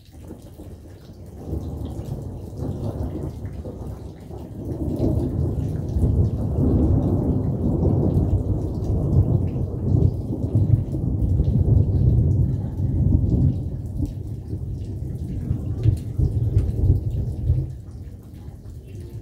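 A long roll of thunder starts about a second and a half in, swells, and dies away shortly before the end. Rain falls throughout, with small drop clicks.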